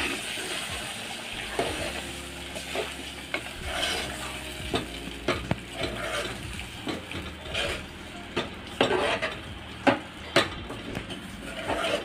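Metal ladle stirring thick mashed toor dal into hot oil tempering in a metal pot, with a sizzle that is strongest in the first second and repeated knocks and scrapes of the ladle against the pot, the loudest about nine to ten seconds in.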